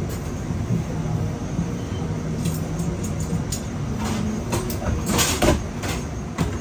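Steady low machine hum with several scattered knocks and clatters, the loudest a little after the middle.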